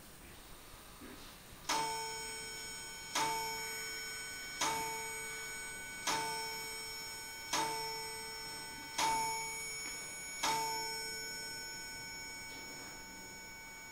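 A bell-like metallic chime sounds seven times at even intervals about a second and a half apart. Each strike rings on and fades slowly.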